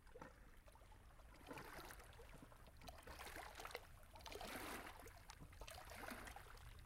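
Faint sea water lapping and splashing softly, in small irregular washes.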